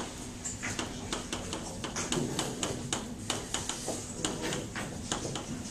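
Chalk tapping and scratching on a blackboard as words are written: an irregular run of short, sharp clicks, several a second.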